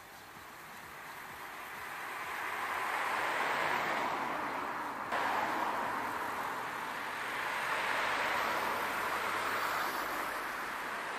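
Road traffic: cars passing with tyre and engine noise that swells and fades, peaking twice. The level jumps suddenly about five seconds in.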